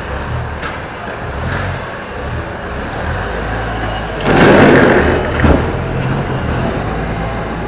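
Forklift running and driving past close by, its motor humming low and steady; the sound swells to its loudest a little past halfway as the truck passes, with a short knock just after.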